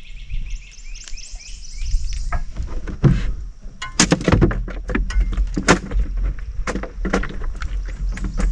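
Sharp knocks and clatter against a small fishing boat, starting about three seconds in and coming thick and fast, as the angler handles gear and a caught fish on board. A rapid high chirping carries in the background over the first few seconds.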